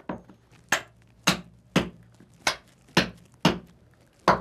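Repeated sharp knocks, about two a second, as wooden lasts are struck into new giveh cloth shoes to stretch and set them to shape.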